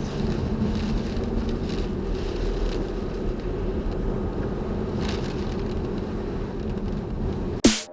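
Steady road and engine noise of a Nissan X-Trail T30 being driven, heard from inside the cabin. Near the end a brief loud sound falls in pitch, then the sound cuts off.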